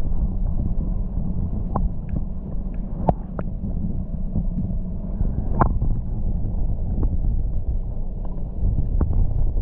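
Muffled underwater rumble picked up by a submerged camera in shallow sea water, with irregular sharp clicks and ticks scattered through it, the loudest about halfway.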